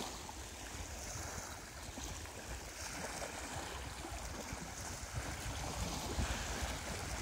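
Wind blowing across the microphone and small crashing waves lapping at a lake shore: a steady, even rush with a low rumble from the wind.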